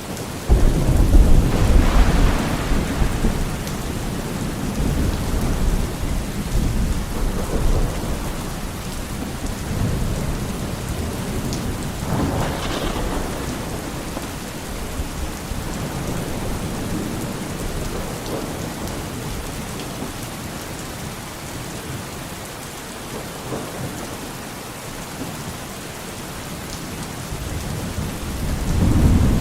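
Steady heavy rain in a thunderstorm. Thunder breaks sharply just after the start and rumbles on for several seconds, another crack comes about midway, and a fresh rumble builds near the end.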